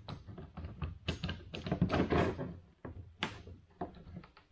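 Steam-bent wooden laminations being pressed and clamped around a net-frame mold: a run of short clicks, creaks and knocks of wood and clamps, with a few longer scraping creaks. The wood is under bending strain, the kind of stress that gives the cracking sounds heard while bending.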